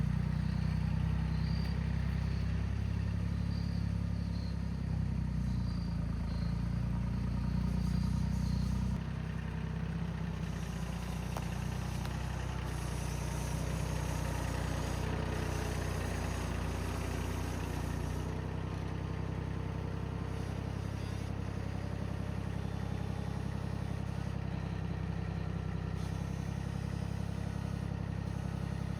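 An engine running steadily at a low pitch, dropping a little in loudness about nine seconds in and then running on evenly.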